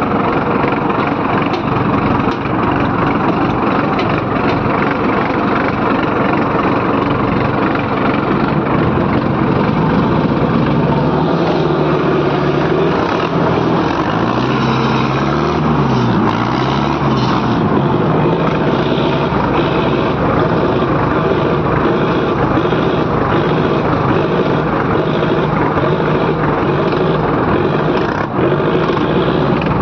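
Diesel farm tractor engine running steadily while the tractor is driven. About halfway through, the engine note rises and falls a few times.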